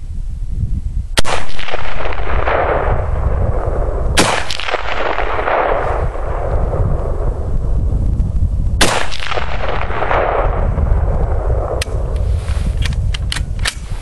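Three shots from an SVT-40 Tokarev rifle firing 7.62x54R, spaced a few seconds apart, each followed by a long rolling echo, over steady wind buffeting on the microphone. Near the end come several light sharp clicks.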